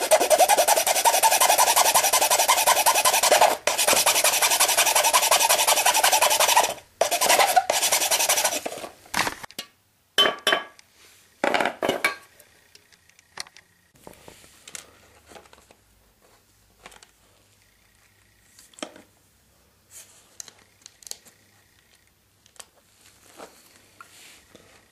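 A file rasping across the plastic print bed of a 3D printer in rapid back-and-forth strokes. It runs hard for about six seconds, then comes a shorter burst, and after that only scattered light scrapes and taps.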